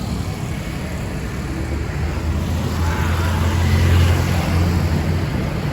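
Busy city street traffic: a steady din of engines and tyres, with one vehicle's low engine hum swelling as it passes close, loudest about four seconds in.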